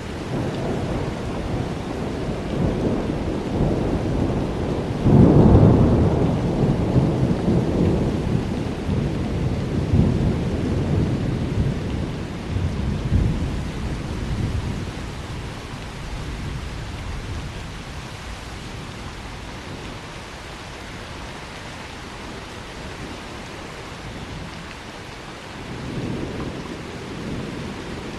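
Thunder rumbling over steady rain. A loud peal about five seconds in rolls on for several seconds and dies away, and a quieter rumble comes near the end.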